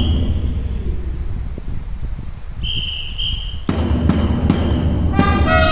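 Japanese baseball cheering-band music on multitracked trumpets and a drum. A quieter stretch with drum beats and a short high held note gives way, near the end, to the trumpets coming in together.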